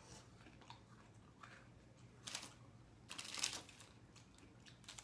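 Brief rustling of snack packaging being handled, in two short bursts about two and three seconds in, the second the louder, over a faint steady room hum.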